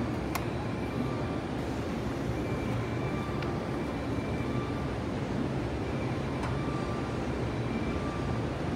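Steady low rumble of a railway station as a train approaches in the distance, with a faint tone that sounds on and off every second or so and a few faint clicks.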